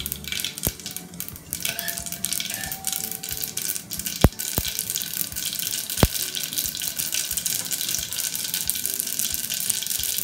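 Cumin and black mustard seeds sizzling and crackling in hot oil in a stainless-steel pressure cooker, with a few sharper pops, the loudest about four and six seconds in.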